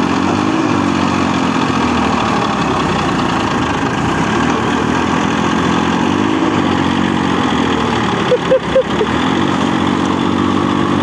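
Massey Ferguson 241 DI tractor's three-cylinder diesel engine working hard under load in mud, its revs rising and falling several times as the rear wheels spin. About eight seconds in come three short sharp sounds in quick succession.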